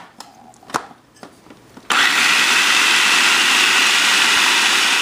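A few light plastic clicks and knocks as the food processor's feed-tube pusher and lid are handled, then about two seconds in the motor switches on suddenly and runs steadily, chopping a wet batch of fresh coriander and jalapeno with lemon juice and vinegar into green chutney.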